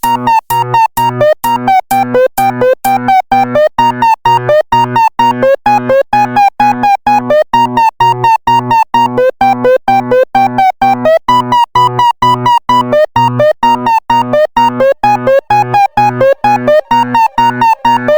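Electronic music: a synthesizer plays short, choppy chords in a steady, fast pulse, each note starting with a click.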